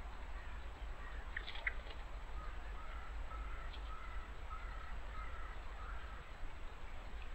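A few short high chirps about a second in, then a bird repeating a short call about six times, evenly spaced over some four seconds, over a steady low rumble of woodland background noise.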